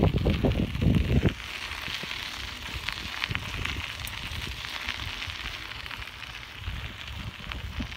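Bicycle tyres rolling over a gravel trail: a steady crackling crunch, dotted with small clicks of stones. A loud low rumble in the first second or so.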